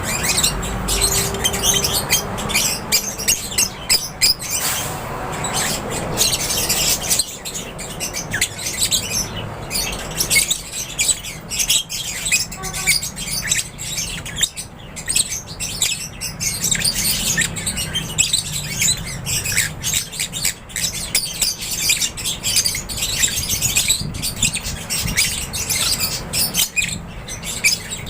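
A flock of lovebirds chirping and squawking, a dense, unbroken chatter of many birds calling over one another.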